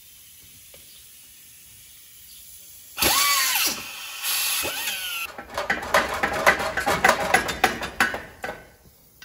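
Steel tubing clanking and scraping in a chop saw's vise as the nearly cut-through piece is worked loose by hand: a sudden loud metallic screech about three seconds in, then a run of rapid rattling clanks.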